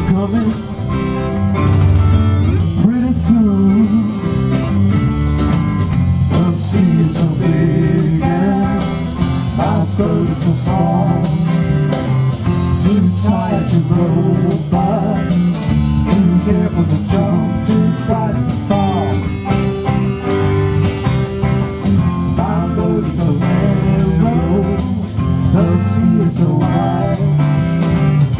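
Live rock band playing an instrumental passage with drums, bass, and acoustic and electric guitars. A lead line bends up and down in pitch over the steady rhythm.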